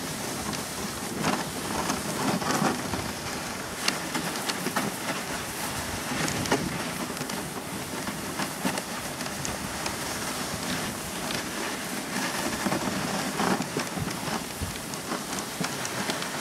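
Dog sled runners hissing and crunching over snow as a two-dog team pulls, with a steady rush broken by frequent sharp crackles and clicks.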